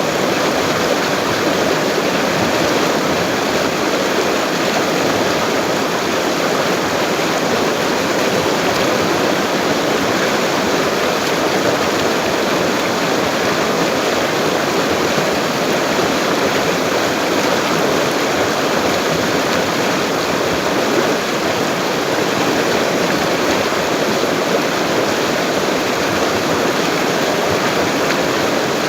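A high-flowing river rushing steadily: a constant, even wash of moving water that never breaks or changes.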